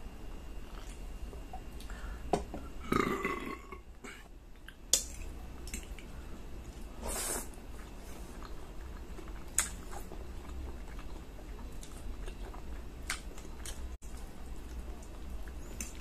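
Close-miked eating of a spaghetti meal: a short burp about three seconds in after gulping cola, then chewing and a slurp of noodles about seven seconds in. A few sharp clicks of a metal fork against a ceramic plate sound throughout.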